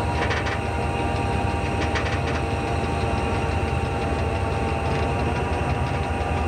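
Locomotive cab noise while the train runs along the track: a steady engine rumble under wheel-on-rail sound, with brief rattles about a third of a second in and again about two seconds in.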